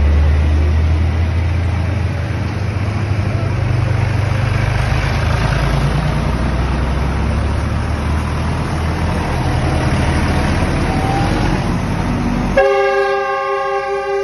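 Diesel tractor engines running as tractors drive past on a wet road, with a low engine hum and tyre hiss, loudest as the first one passes close. Near the end, a vehicle horn sounds steadily for about a second and a half.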